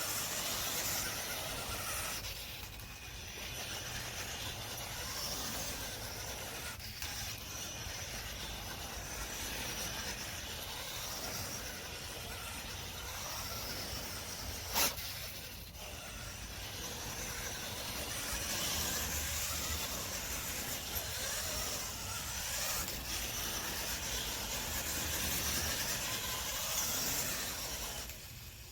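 Electric radio-controlled monster truck being driven on its test run: a steady hissing noise, with one sharp click about halfway through.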